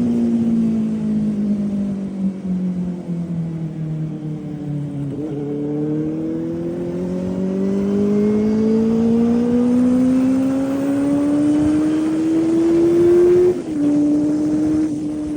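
Benelli 600i inline-four motorcycle engine under way: its note falls for about five seconds as it slows, then rises steadily for about eight seconds as it accelerates, and drops sharply at a gear change near the end.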